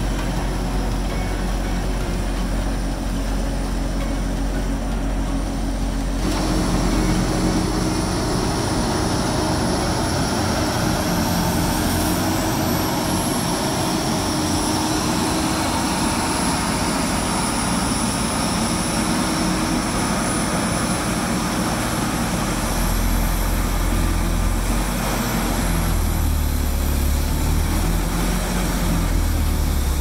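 John Deere 644K wheel loader with a front-mounted snowblower working hard through a snowbank: a loud, steady heavy-machine drone from its diesel engine and spinning blower, with a thin high whine above it. The low rumble grows heavier over the last several seconds.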